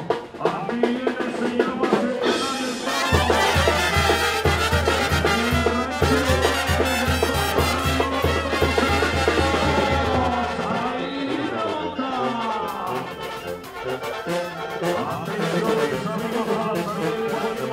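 Mexican banda brass music playing: trumpets and trombones, with a strong steady low beat through the middle part.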